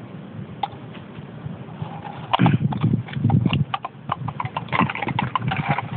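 Quick, irregular patter and thumps of running: a Jack Russell terrier's paws dashing across grass and onto pavement, with a denser run of taps near the end.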